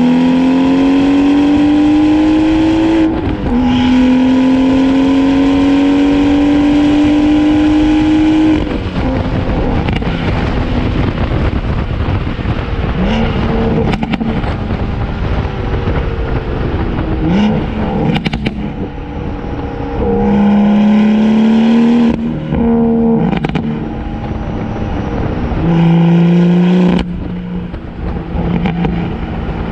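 BMW M140i's turbocharged straight-six, breathing through an Akrapovic downpipe and Ego X exhaust, pulls hard with the pitch rising, shifts up about three seconds in and pulls again. After about eight seconds it lifts off and crackles and pops on the overrun from its Stage 2 burble tune, with several short bursts of throttle in between.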